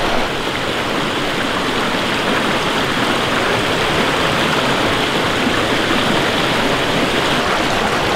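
A rocky mountain stream running steadily over boulders and riffles.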